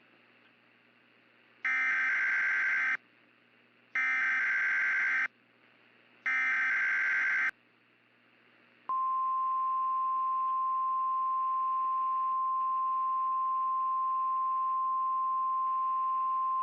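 Emergency Alert System / NOAA Weather Radio alert opening: three short, evenly spaced screeching bursts of SAME header data, then about nine seconds in the steady single-pitch 1050 Hz weather radio warning alarm tone starts and holds. The sequence heralds a new tornado warning.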